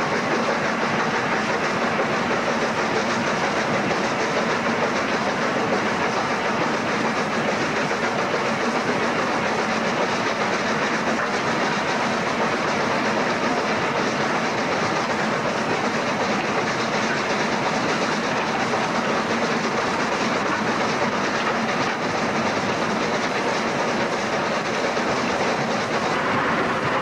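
LNER A3 Pacific steam locomotive 60103 Flying Scotsman running along the line, heard from its own footplate: a steady, unbroken din of the engine working and the wheels on the rails.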